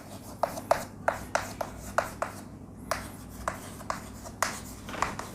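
Hand writing: a steady run of short scratching strokes, about three a second, made by a pen or marker as a formula is written out.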